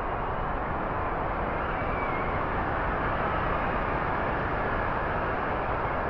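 Strong storm wind blowing steadily, swelling slightly in the middle, with a faint brief whistle about two seconds in.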